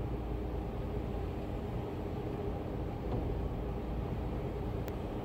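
Hurricane wind and driving rain: a steady, heavy rush of noise with no letting up. A single click near the end.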